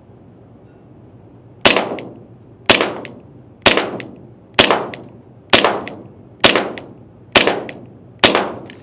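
PTS ZEV 1911 gas blowback airsoft pistol firing eight single shots about one a second, each a sharp crack with a short echo.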